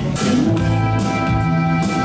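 Music: a sudden crash-like hit right at the start with a short upward slide, then held chords over a repeating bass note.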